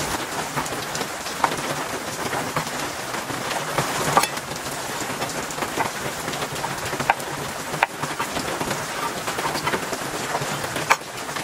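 Steady rain falling, with a few scattered sharp clicks.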